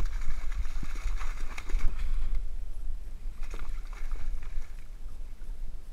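A fluke (summer flounder) thrashing and splashing in a landing net at the water's surface, in two spells: one at the start and a shorter one about three and a half seconds in. A steady low wind rumble on the microphone runs underneath.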